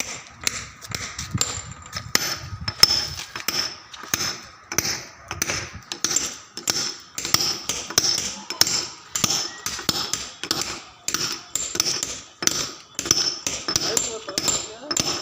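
Hand hammer tapping a steel chisel against stone, a steady run of sharp, ringing strikes about two to three a second, pecking the stone's surface rough.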